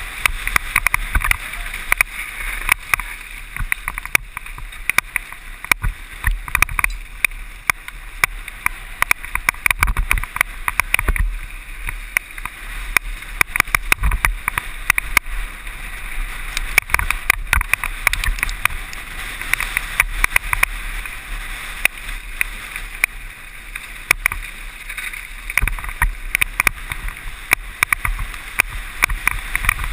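Mountain bike rattling down a rough trail at speed: a constant clatter of many irregular knocks over a steady rush of wind on the microphone.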